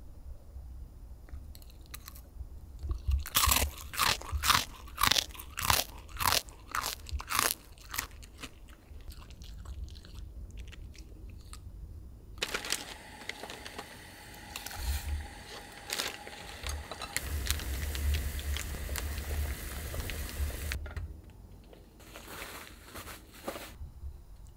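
A dog crunching and chewing a dried pollack treat, with sharp bites two or three a second. In the second half a steady hiss runs for several seconds.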